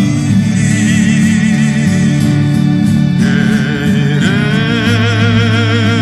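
Background music: a slow song with a voice singing long, wavering notes over sustained low chords.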